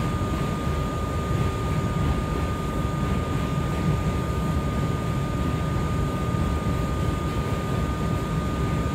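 Inside a moving R179 subway car: the steady rumble of the train running on the rails, with a steady high whine above it.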